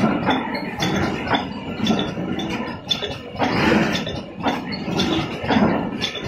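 Automatic cartoning machine running, with a continual clatter of clicks and metallic clinks from its moving parts and the metal hinges it is packing, several strokes a second at uneven spacing.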